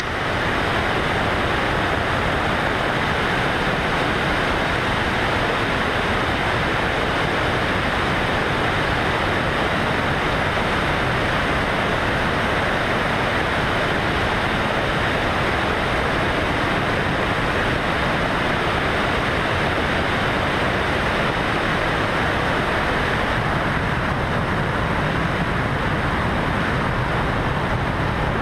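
Steady rush of wind and propeller-engine noise on a camera mounted under the wing of a single-engine skydiving plane in flight.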